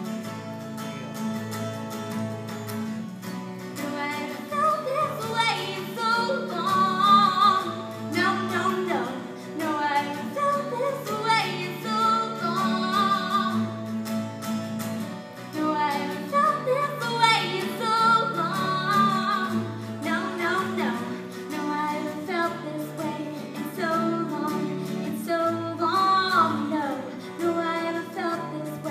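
A woman singing a song live to guitar accompaniment, her sung phrases rising and falling over steady strummed chords.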